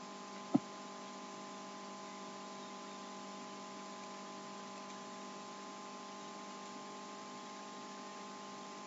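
Steady electrical hum in the recording, several even tones over faint hiss, with one short click about half a second in.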